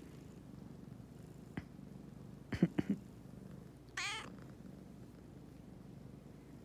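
Domestic cat purring steadily, with a quick run of sharp clicks about two and a half seconds in and one short, high meow about four seconds in.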